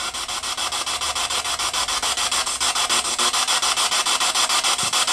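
Spirit box scanning through radio stations: steady radio static chopped into about six or seven rapid bursts a second.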